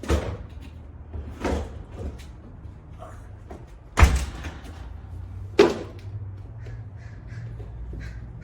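Four knocks or thuds, like a door or heavy objects being set down, the loudest about four seconds in, over a steady low hum.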